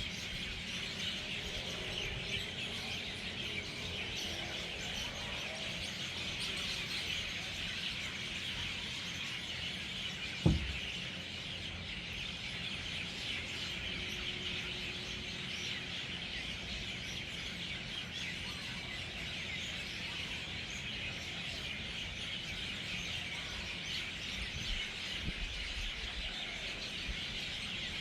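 A large flock of birds chirping and chattering all at once as they gather to roost for the night. A single sharp thump cuts in partway through.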